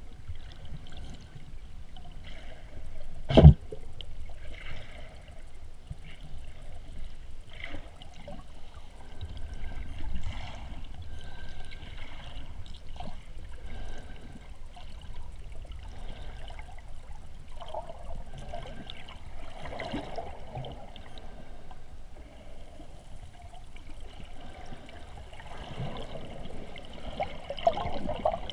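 Muffled water swishing and bubbling heard underwater as a swimmer moves through shallow sea water, with one sharp knock about three seconds in, the loudest moment.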